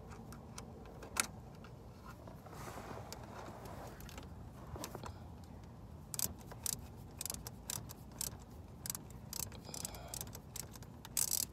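Metallic clicks and clinks of a hand wrench working a tight bolt on the car's A/C compressor line fitting, sparse at first and coming thick and fast in the second half.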